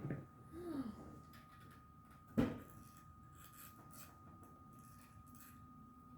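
Faint handling of small plastic toy parts, with one sharp click about two and a half seconds in and a few light ticks after it. A faint steady high whine runs underneath.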